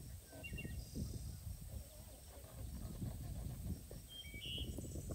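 A knife cutting and crunching through the crisp roasted crust of a whole spit-roasted lamb, with an irregular run of crackles. A bird chirps briefly twice.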